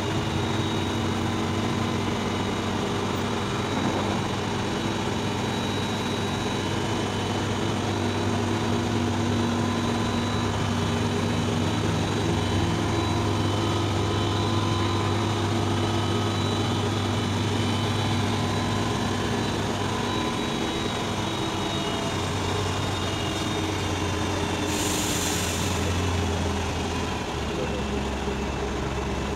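Demag AC 615 crane's diesel engine running steadily at raised revs while the hydraulics raise the boom, with a brief hiss about 25 seconds in. The engine note drops near the end.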